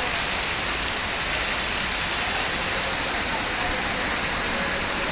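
Heavy rain falling steadily, a constant even hiss of drops on surfaces.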